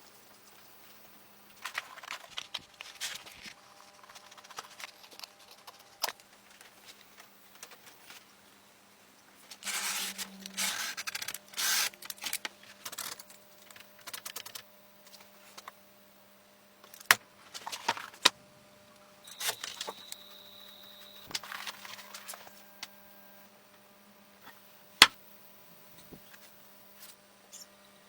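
Scattered clicks, taps and scraping of hand work with tools and metal parts, in irregular bursts, over a faint steady low hum. A short steady high tone sounds about two-thirds of the way through.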